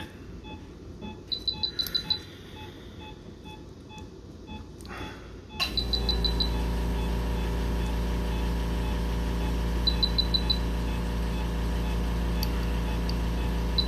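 Electronic equipment beeping: short quick runs of high beeps, several times. About five and a half seconds in a loud, steady machine hum switches on abruptly and keeps running under the beeps.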